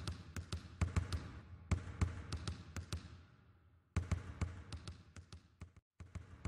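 Basketballs dribbled on a hard court, many quick irregular bounces ringing in an echoing hall. The bouncing dies away into the echo about halfway through, then starts again abruptly, with a brief break shortly before the end.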